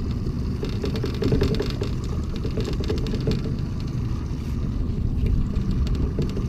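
Boat outboard motor running steadily, a continuous low rumble with a faint steady whine, over water and scattered small clicks.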